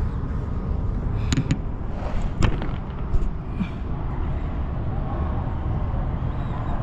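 Steady low outdoor rumble, with a few sharp knocks about a second and a half and two and a half seconds in.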